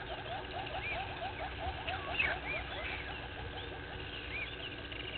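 Wild birds calling in the bush. A rapid run of short rising notes, about six a second, fades out after about three and a half seconds, while a high arched whistle repeats about every second and a half.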